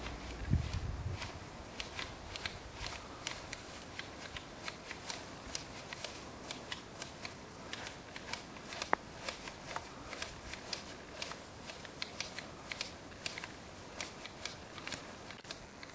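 Hand tea-harvesting shears snipping through tea-bush shoots in a rhythmic run of crisp cuts, about two or three a second, with the rustle of leaves. There is a low thump just after the start.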